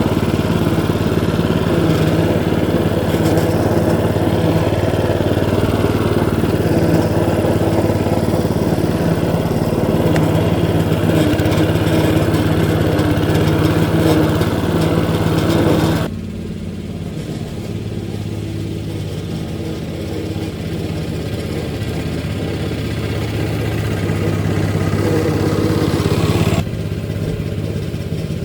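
Hecht 5676 lawn scarifier's engine running steadily, its blades working through the turf. About halfway through the sound suddenly becomes quieter and duller, and it drops again near the end.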